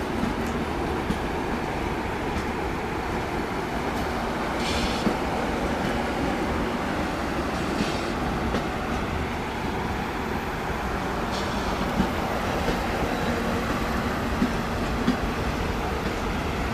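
Coaches of the 19301 Yesvantpur–Indore Express train moving along the platform, a steady rumble of wheels on the rails. Three short high-pitched bursts come about 5, 8 and 11 seconds in.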